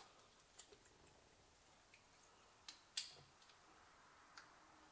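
Near silence broken by a few faint, sharp clicks and taps of plastic clipper guards and their packaging being handled, the loudest about three seconds in.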